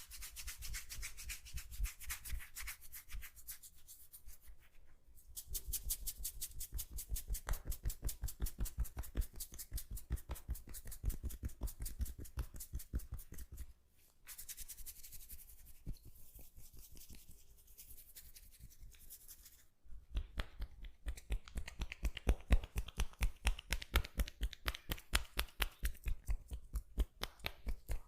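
Hands rubbing rapidly in a massage, several rhythmic friction strokes a second. The strokes come in runs that stop and restart about five, fourteen and twenty seconds in, and the run between fourteen and twenty seconds is quieter.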